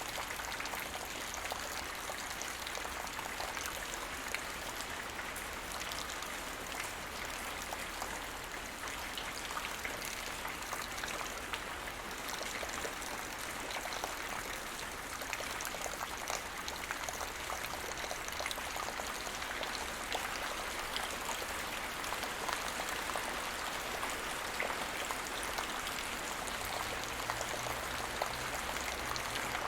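Steady light rain, with countless small drops pattering on the ground.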